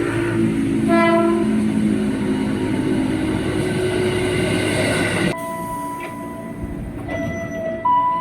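KRL Commuterline electric commuter train sounding a short horn blast about a second in, over the noise of a train running on the rails. About five seconds in the sound cuts abruptly to steady tones that step up in pitch near the end.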